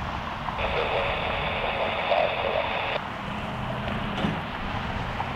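An air-band radio opens about half a second in, hisses for about two and a half seconds with a steady high tone and no clear words, then cuts off. Under it runs the low rumble of a Boeing 737's jet engines taxiing, with wind.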